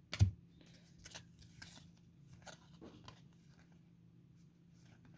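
Football trading cards being flipped through one by one, with faint scattered slides and clicks of card stock against card stock, and a short louder tap just after the start.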